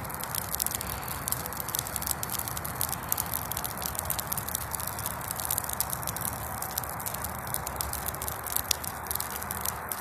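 Bonfire of weeds crackling, with many quick pops and snaps over a steady rushing noise.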